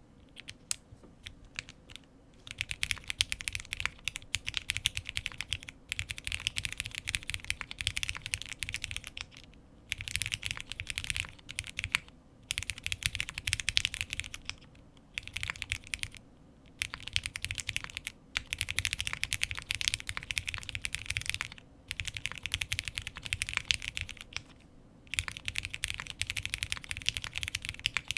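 Custom Space65 R3 mechanical keyboard being typed on. It has Cherry MX Black linear switches lubed with Krytox 105/205, a POM plate with plate foam, and GMK doubleshot ABS keycaps. A few single keystrokes come first, then fast runs of typing broken by short pauses.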